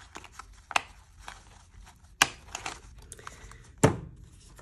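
Paper scraps rustling and crinkling as hands sort through a pile of collage paper, with three sharp snaps among the rustle, the loudest near the end with a dull knock on the table under it.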